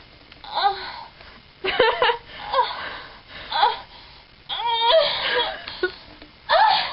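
A woman making a series of exaggerated vocal noises, mock-sexual moans and squeals with sliding pitch and one warbling cry about five seconds in, mixed with giggling.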